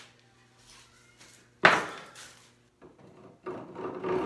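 A single loud knock about one and a half seconds in, then a few light clicks, and near the end the first rasping strokes of a hand rip saw cutting into a board held in a bench vise.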